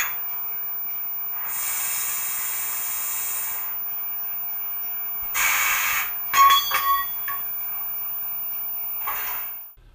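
Coupling sound effect from the PIKO SmartDecoder 4.1 Sound in a TT-scale Class 55 model steam locomotive, played through its small loudspeaker over a steady hiss. A louder hiss comes about a second and a half in and lasts two seconds. A short, sharp hiss comes about five and a half seconds in, followed by several metallic clanks and clinks of the couplers.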